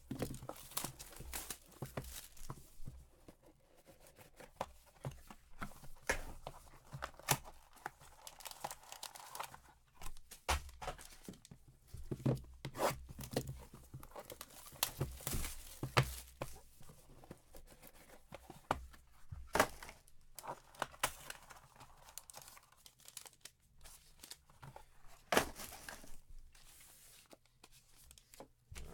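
Plastic wrapping being torn and crinkled off sealed trading-card boxes, with irregular clicks and knocks of cardboard being handled.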